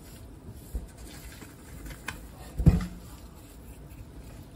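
Canning and pickling salt pinched and sprinkled by hand over a raw chicken in a pot of brine: faint soft patter and rustling, with a dull thump a little over halfway through.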